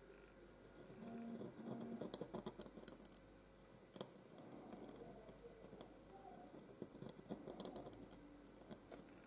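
Pointed dip pen nib scratching on textured paper as copperplate strokes are written: faint fine ticks and scratches in two spells, with a single sharp tick about four seconds in.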